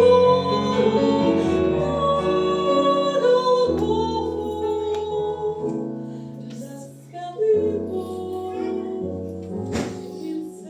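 A song: a singing voice holding long notes over a sustained low instrumental accompaniment, with one sharp strike shortly before the end.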